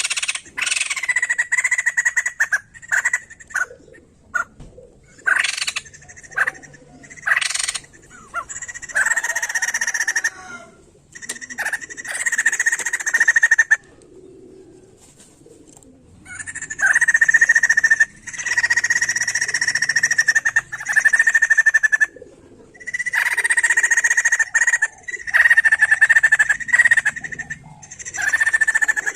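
White-crested laughingthrush (poksay jambul) calling in loud, harsh chattering bouts of one to a few seconds each, with short pauses between them and a longer lull about halfway through.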